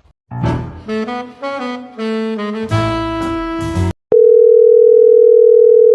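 A short melody of held notes on a saxophone-like instrument, then, about four seconds in, one long, loud, steady electronic beep lasting about two seconds that cuts off suddenly.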